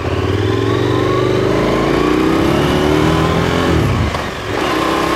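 KTM 1290 Super Adventure's V-twin engine pulling under acceleration, its revs climbing for nearly four seconds. About four seconds in the revs drop briefly with an upshift, then the engine pulls again at lower revs.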